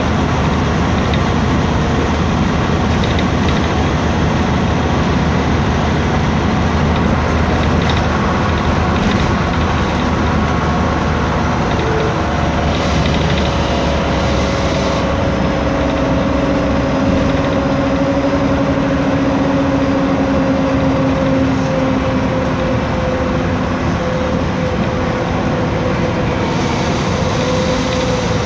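Cabin noise of a MAN Lion's City G articulated city bus under way: steady rumble of its rear-mounted E2876 straight-six CNG engine together with road and body noise. A faint steady whine joins about halfway through.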